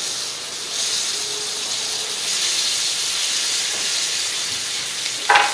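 Bone-in pork chop searing in hot oil on a griddle pan, a steady sizzling hiss as tongs shift it around in the fat. A short high-pitched sound cuts in just before the end.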